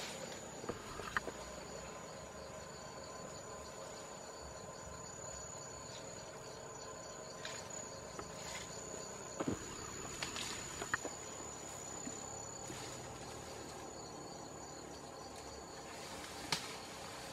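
Steady chorus of insects, with a high, unbroken drone and several lower steady tones, in tropical forest. A few sharp snaps stand out, in the middle and near the end.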